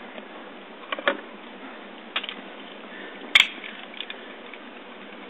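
Scattered sharp clicks and knocks of hand tools and pipe fittings being handled while the water service line is joined to the meter. The loudest, sharpest click comes about three and a half seconds in.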